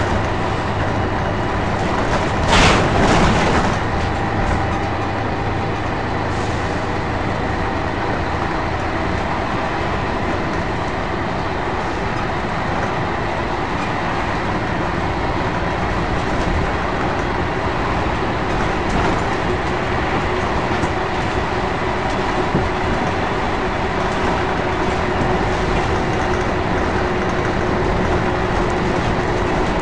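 Interior of a Scania L113CRL single-decker bus under way: the rear-mounted diesel engine drones steadily under road and body noise. A brief, louder burst of noise comes about two and a half seconds in.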